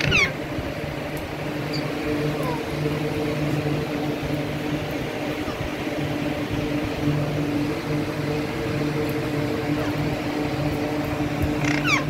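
Alexandrine parakeet giving a harsh, falling squawk right at the start and another near the end, with a few faint short calls between, over a steady low hum.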